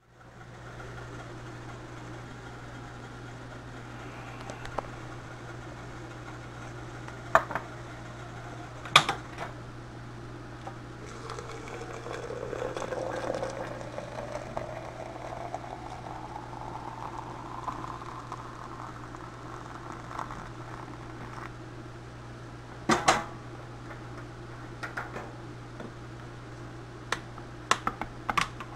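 Hot water poured from a kettle into a glass French press over coffee grounds, about ten seconds of splashing whose pitch rises steadily as the carafe fills. A few sharp knocks come before and after the pour, and quick light clinks near the end as the grounds are stirred, over a steady low hum.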